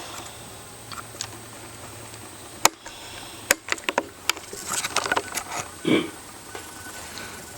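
A man snoring in his sleep: a low, steady rumbling breath for the first few seconds, then a few sharp clicks, and a short snore about six seconds in.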